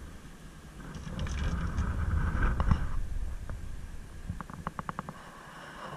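Low rumbling and scraping handling noise as the action camera is moved, loudest about one to three seconds in, followed by a quick run of about eight sharp clicks.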